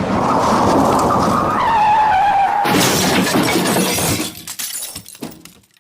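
Car crash sound effect: tyres screeching with a squeal that falls in pitch, then, about two and a half seconds in, a sudden crash with glass shattering. Scattered pieces of glass and debris clatter and settle, dying away near the end.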